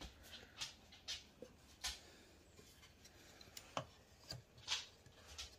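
Faint handling noise: about eight light, irregular clicks and taps with soft rubbing in between.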